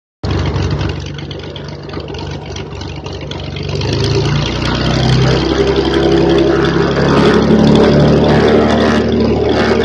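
Beechcraft S35 Bonanza's six-cylinder Continental IO-520 engine and propeller running at low power while taxiing, growing louder from about three seconds in.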